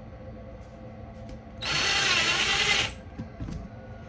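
Power drill run in one burst of just over a second, starting about a second and a half in, its pitch dipping slightly midway, followed by a few faint clicks.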